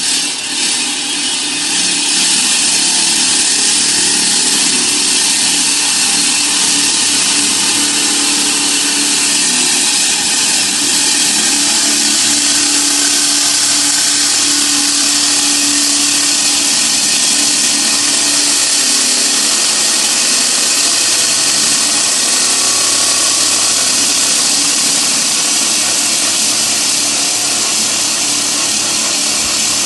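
Concrete saw cutting through concrete: a loud, steady, high-pitched grinding hiss with a faint hum underneath, rising to full level over the first couple of seconds.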